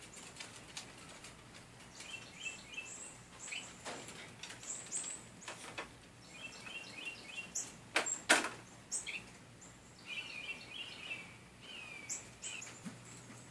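Small finch chirping in short high calls, often in quick runs of three or four. A few sharp knocks break in, the loudest about eight seconds in.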